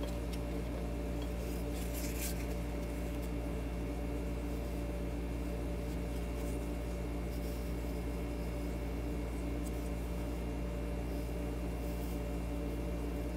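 Faint rubbing and a few light scrapes of gloved hands sliding a metal tube shield off a 6K7G glass vacuum tube, over a steady low electrical hum.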